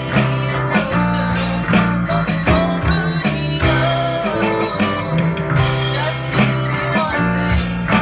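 Band playing a guitar-led instrumental passage.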